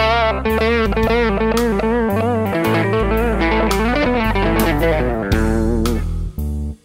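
Instrumental rock-blues: an electric lead guitar plays a melody with wide vibrato and bends over bass guitar and drums. The band cuts out briefly near the end.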